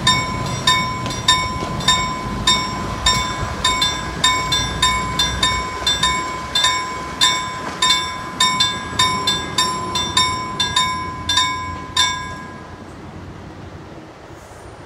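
Level-crossing warning bell ringing in quick, even strokes, about two a second, over the low rumble of a YP class railbus train passing over the crossing. The rumble fades away about halfway through, and the bell stops about 12 seconds in as the crossing clears.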